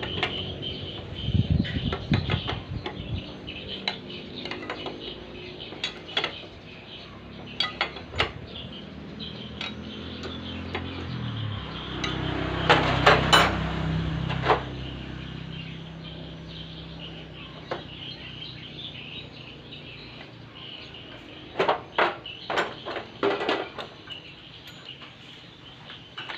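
Metal tools and engine parts clinking and knocking during the reassembly of a small ketingting boat engine. The clinks are scattered, with a cluster of loud ones about halfway through and another near the end.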